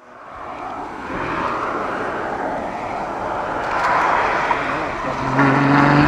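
Ferrari FF's V12 engine as the car drives by on a race circuit, fading in from silence. About five seconds in, the sound gets louder and turns into a clear, steady engine note as the car comes close.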